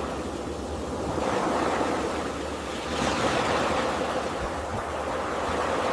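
Ocean waves washing onto a shore: a steady surf wash that swells about a second in and again around three seconds.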